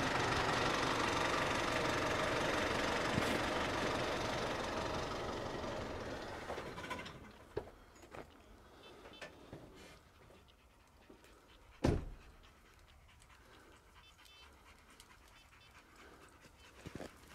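Dog panting. A loud, steady rushing noise fades out over the first six to seven seconds. About twelve seconds in comes a single sharp bang.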